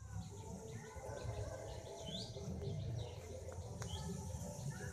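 A bird chirping outdoors, with two short rising chirps about two seconds in and near four seconds, over a steady low rumble.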